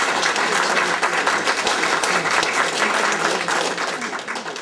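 A small group applauding, a dense patter of hand claps that dies away near the end.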